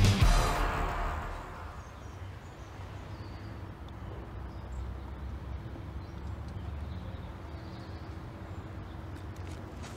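Rock music with guitar fading out over the first second or two, followed by a low, steady outdoor background with a faint rumble.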